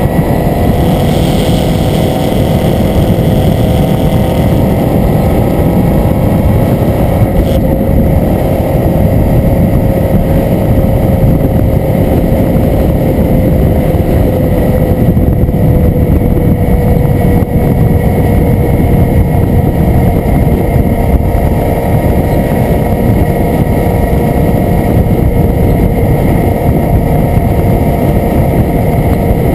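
Suzuki V-Strom's V-twin engine running steadily at cruising speed under heavy wind noise on the microphone, the engine note drifting slightly lower partway through.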